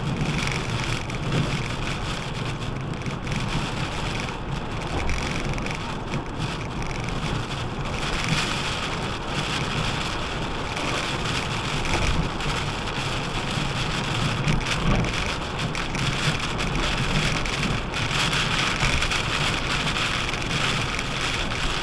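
Steady rain on a moving car, heard from inside the cabin, mixed with the hiss of tyres on a wet highway and road noise.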